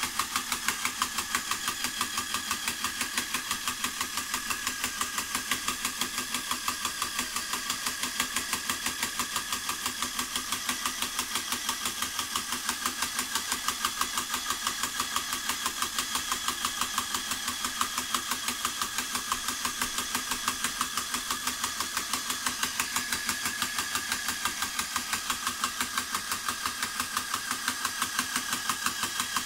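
Drill motor on a 12-volt supply running steadily, spinning a sliding weight in an experimental centrifugal-drive cart. The weight knocks fast and evenly each time it goes round and hits its drop-off.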